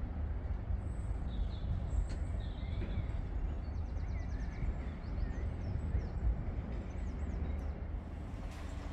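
Small birds chirping and trilling over a steady low rumble, with one quick run of about eight rapid notes in the middle.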